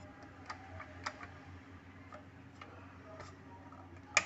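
Scattered light clicks from the Modern M-3700 miter saw as it is handled, unpowered, at its blade guard and safety release lever, with one sharper clack near the end.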